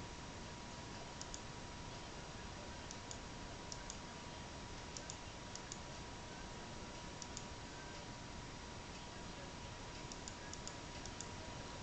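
Faint, irregular small ticks, some in quick pairs, over a steady hiss and a faint steady tone.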